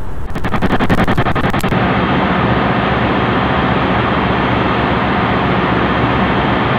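Ship's engine-room machinery running with a loud, steady drone and a low hum. A fast run of clicks is heard over it during the first second and a half.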